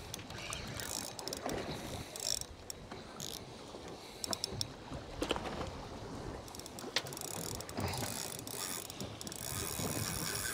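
Large fixed-spool spinning reel being cranked under load as a hooked shark is played, its gears ratcheting and whirring, with scattered sharp clicks.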